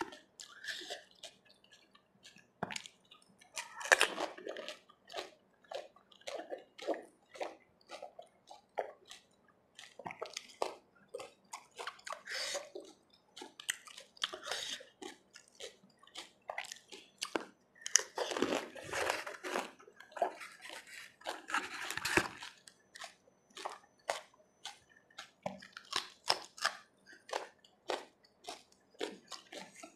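Close-miked eating of pani puri: crisp hollow puri shells crunching and cracking between the teeth, with wet chewing. Several longer wet, watery stretches come from the spiced water in the filled shells.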